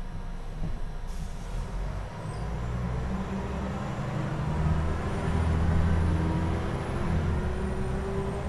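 Scania L94IB city bus's diesel engine and drivetrain running, heard from inside the passenger cabin while under way. The engine note builds from about two seconds in, with a faint rising whine in the second half.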